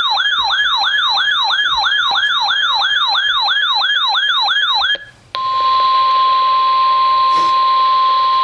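A weather radio's built-in alert siren warbles rapidly, sweeping up and down about four times a second. About five seconds in it cuts off. After a brief gap, NOAA Weather Radio's steady 1050 Hz warning alarm tone sounds over broadcast hiss, the signal that a warning message follows.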